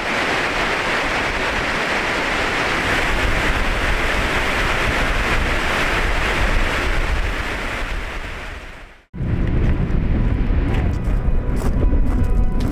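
River water rushing over the rocks of a canyon in a steady stream of noise that fades out at about 9 seconds. After a sudden cut, wind buffets the microphone with a low rumble.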